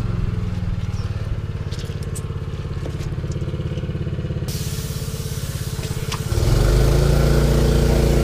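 Gas-powered air compressor's small engine running steadily while it pumps air into a loader tire. It gets noticeably louder about six seconds in.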